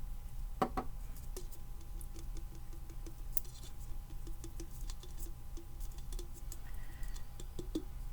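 Light, irregular clicks and patter of a Christmas ornament being turned and shaken in the hands, with a faint rapid tapping through the middle, over a steady low hum.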